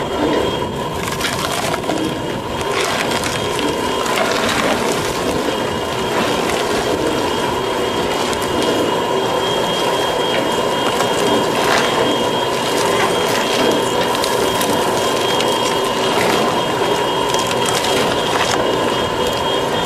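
Vincent shredder-screw press running steadily with a constant whine, its screw and breaker bar crushing produce waste, including celery in a plastic bag, with irregular cracks and crunches.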